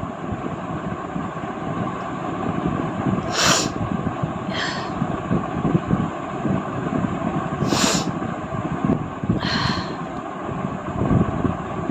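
Several short, sharp sniffs or breaths through the nose, spaced a second or more apart, over a steady rumbling background noise.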